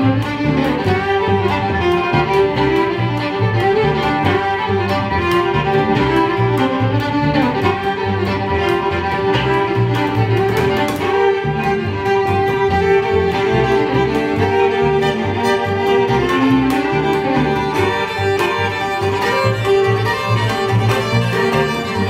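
Two fiddles playing a fiddle tune together over an upright bass plucked in a steady beat.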